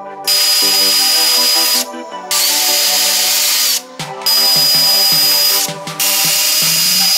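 Brushless cordless drill running in four bursts of about a second and a half each, with a steady high whine, driving screws to fasten the boat's hatch cover.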